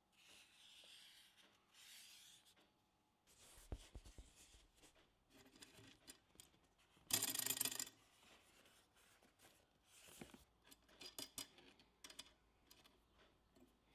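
Faint rubbing and scratching: a marker tracing on EVA foam, then hand handling as the hot-wire cutter's wire is threaded and fastened. A brief louder rasp comes about seven seconds in, and a few light clicks follow around ten to eleven seconds.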